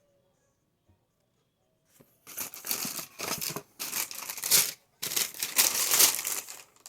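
Paper packing being handled while a shoe box is unpacked, crinkling and rustling in two spells of about two and a half seconds each, starting about two seconds in.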